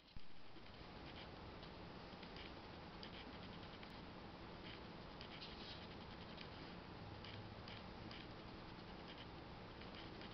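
Faint, irregular soft scratching and rustling of a hand stroking a rabbit's fur, over a steady low hiss.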